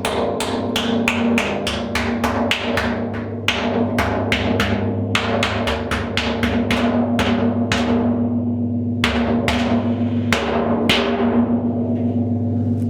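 Hammer blows on the dented wall of a 200-litre conical metal honey barrel, knocking the caved-in section back into line. Each strike rings through the drum, about two or three blows a second with a few short pauses, the ring carrying on between them.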